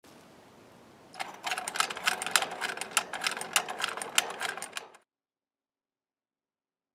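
A rapid, irregular series of sharp taps or clicks for about four seconds, starting about a second in and cutting off abruptly.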